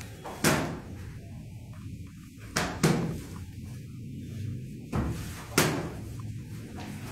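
Rattan chairs and stools knocking against the floor as dancers handle them: five sharp knocks at irregular times, two of them coming in quick pairs.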